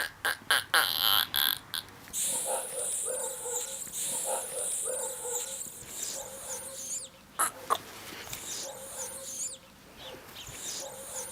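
Dog whimpering and yelping, after a quick run of sharp clicks in the first two seconds.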